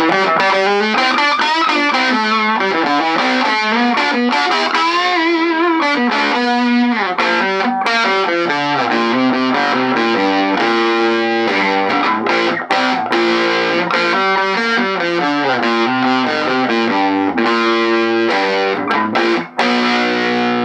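Electric guitar, a Les Paul, played straight into a 5F1 Champ-style tweed amplifier with a single 6V6 output valve and an 8-inch speaker, the volume at 10. It gives an overdriven tone, with lead lines, chords and string bends with vibrato, and a brief gap near the end.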